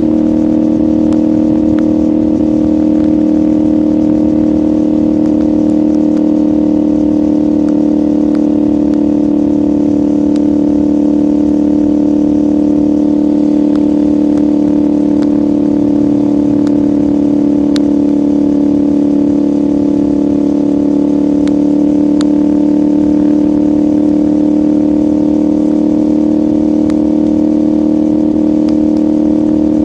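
CFMoto 450SR's parallel-twin engine and exhaust running at a steady, nearly unchanging engine speed, with no revving up or down.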